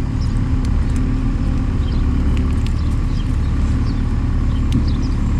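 Steady low mechanical rumble like a running engine, with a few faint short high chirps and small clicks over it.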